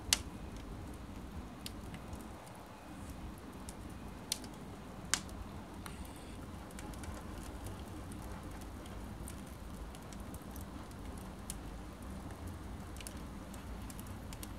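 Twigs and small branches burning in a wood stove's firebox: a steady low rush of the fire with scattered crackles. A few sharp pops stand out, the loudest right at the start and two more about four and five seconds in.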